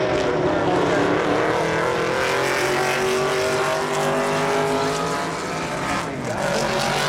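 Vintage race car engines running hard on a circuit, the note gliding up and down as the cars accelerate and pass, with a brief drop and climb in pitch about six seconds in.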